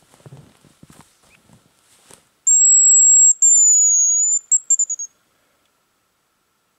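Metal hazel grouse call blown to imitate a male hazel grouse's song, starting about two and a half seconds in: a thin, very high whistle held about a second, a second slightly falling note, then a quick run of short notes. Faint rustling comes before it.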